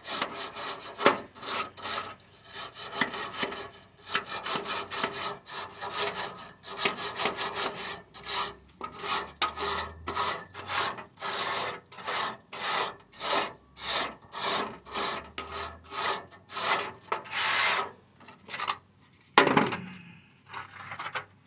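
Rapid hand-worked scraping strokes, about two to three a second, rasping on a hard surface while a swamp cooler is being worked on. They stop for a moment near the end, then come back as one louder stroke and a few lighter ones.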